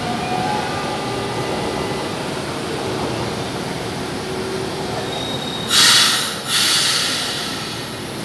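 São Paulo Metro Line 1 train at the station platform, a steady rumble of the train running. About six seconds in come two short, loud bursts of hissing air, one right after the other.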